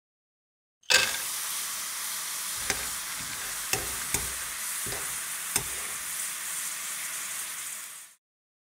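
Frying sizzle from a pan, a dubbed-in sound effect. It starts sharply about a second in, runs steadily with a few sharp ticks, and cuts off suddenly near the end.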